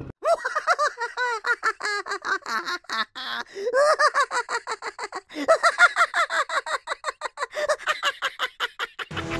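High-pitched cackling laughter sound effect: rapid, repeated 'ha-ha-ha' syllables in several runs with brief breaks.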